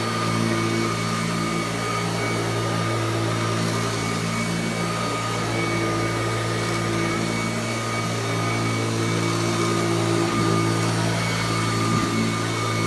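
Kirby Classic III upright vacuum cleaner running steadily, a constant motor hum with a high whine over it.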